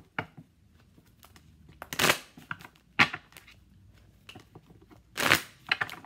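A tarot deck shuffled by hand: a few separate short brushing, slapping bursts of cards, the loudest about two, three and five seconds in.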